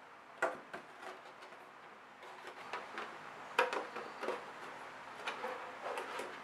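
Thin clear polycarbonate RC car body being handled and fitted over the chassis: a scatter of irregular light plastic clicks and crackles as the shell flexes.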